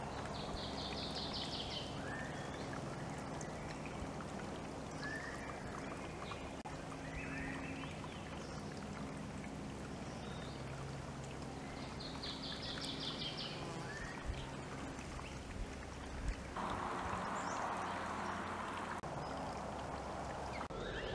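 Outdoor garden ambience with a steady low hum, with small birds calling: scattered short chirps and two rapid trills, one near the start and one about twelve seconds in. A louder rush of noise comes in for a couple of seconds past the middle.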